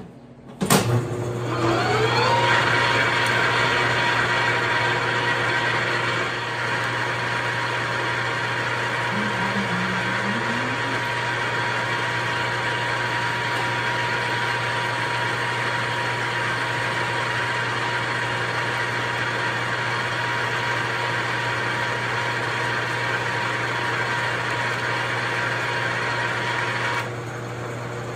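Machine tool starting up, its motor and spindle whining up to speed over about two seconds, then running steadily while it drills a 1/2-inch hole in a square hinge block. Near the end the high whine drops out and the running sound gets a little quieter.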